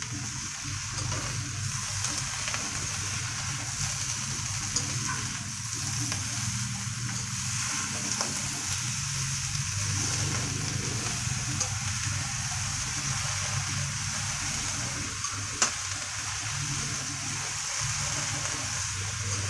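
Bean sprouts and vegetables sizzling in an oiled wok while being stirred and tossed with a spatula: a steady frying hiss over a low hum, with a few clicks of the utensil against the pan, the sharpest about two-thirds of the way through.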